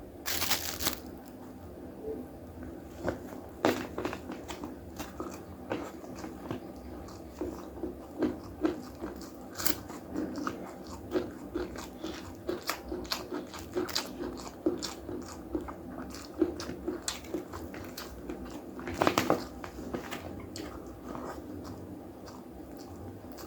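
Close-up mukbang eating sounds: a person chewing a nasi Padang meal, with many short, crisp crunches from biting into crunchy food. There are two louder crunches, one near the start and one about two-thirds of the way through.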